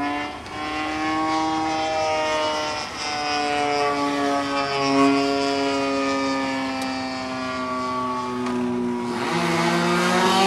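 Evo 35 engine of a radio-controlled Hangar 9 P-47 model airplane running in flight, its pitch wandering slowly up and down. About nine seconds in it rises in pitch and grows louder.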